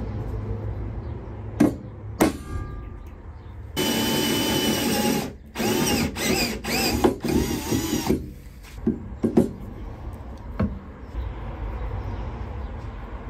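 Cordless drill driver turning a bolt on a steel spare wheel carrier: one steady run of about a second and a half, then several short bursts that rise in pitch and stop. A few sharp metal knocks come before and after.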